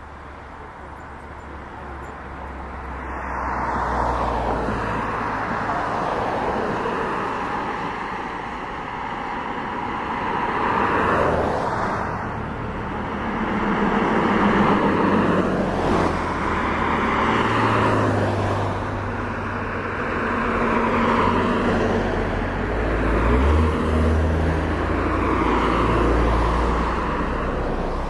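Cars passing one after another on a road close by, their tyre and engine noise swelling and fading every few seconds.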